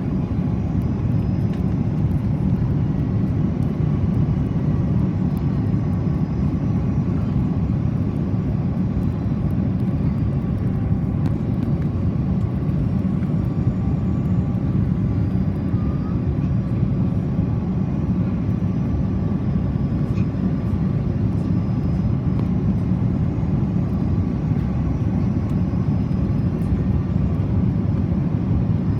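Steady low rumble of engine and airflow noise heard inside the cabin of an Airbus A330-300 with Rolls-Royce Trent 700 engines in flight, with faint steady whines above it.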